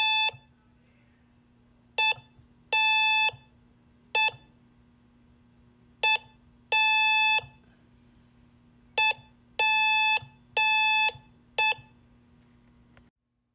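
Morse code sent slowly as a buzzy beep tone, in short dots and long dashes. The groups read dash-dot-dash-dot (C), dot-dash (A) and dot-dash-dash-dot (P). A faint low hum under the tones stops near the end.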